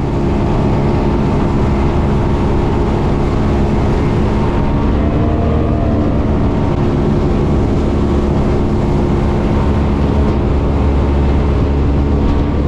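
Motorboat's outboard engine running steadily, a low even drone with a rushing noise over it.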